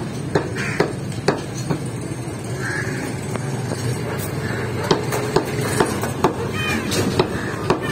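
Meat cleaver chopping beef on a wooden log chopping block: sharp chops about two a second, pausing for about three seconds in the middle before starting again.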